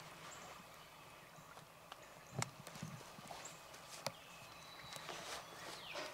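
Scattered knocks and clicks of hunting gear being handled, the loudest a little over two seconds in and again about four seconds in. Near the end come a few faint, falling yelping notes like a turkey's.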